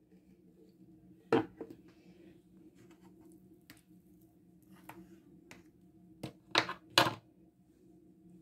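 Plastic mayonnaise squeeze bottle set down on a kitchen worktop with a sharp knock about a second in, then a few faint clicks and two louder knocks close together near the end, over a steady low hum.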